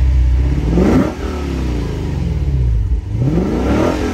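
2022 Lexus IS 500's naturally aspirated 5.0-litre V8 revved twice: the revs climb to a peak about a second in and fall back toward idle, then climb again to a peak near the end and start to drop.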